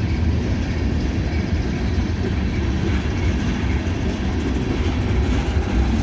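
Freight train cars rolling past at low speed: a steady rumble of steel wheels on rail with a rattle from the cars, the train slowly gathering speed.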